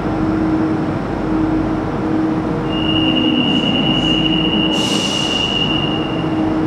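An Alstom NS-16 rubber-tyred metro train stands at the platform with a steady electrical hum. About three seconds in, a steady high-pitched tone starts and lasts about three and a half seconds. Short hisses come during the tone.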